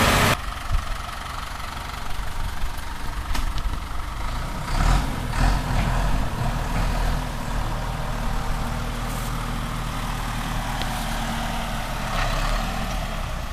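A vehicle engine running steadily at low revs, with a few brief knocks about five seconds in.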